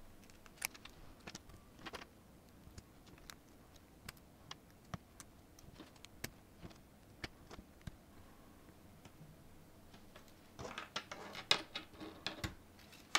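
Small clicks and snaps of 3D-printed plastic parts being pressed together by hand as an articulated figure's arm joints are fitted, with a quicker run of clicks near the end as the arm goes onto the body.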